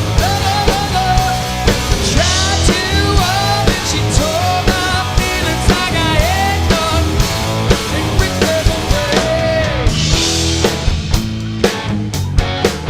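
Rock band playing live: a lead vocal sung over electric guitar, bass and drum kit with a steady beat. The singing stops about ten and a half seconds in, leaving the instruments playing.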